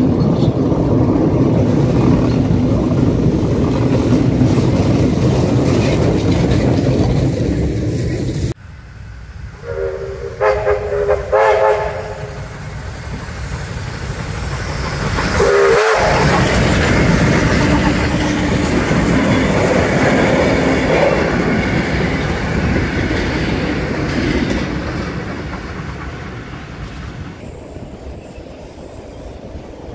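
Red Tait carriages rolling past with a steady rumble and wheel clatter. After a cut, a steam locomotive whistle sounds several short blasts and then one more blast a few seconds later. The locomotive then works past loudly, and the sound fades near the end.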